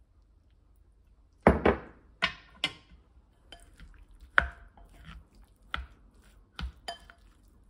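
A plastic rice paddle knocks and scrapes against a glass mixing bowl as sushi vinegar is cut and folded into cooked rice. Irregular sharp taps start about one and a half seconds in, two loud clacks close together first, then scattered knocks every second or so.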